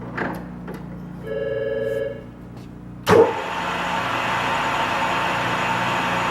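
Bridgeport Romi lathe with its motor humming at rest and a short electronic beep, then about three seconds in the spindle starts abruptly with a clunk and runs steadily in gear range 3 at about 355 RPM, with an even gear whir.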